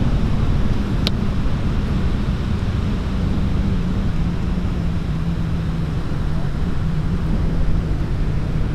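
Wind buffeting the microphone in a steady low rumble, with a steady low hum underneath and one short tick about a second in.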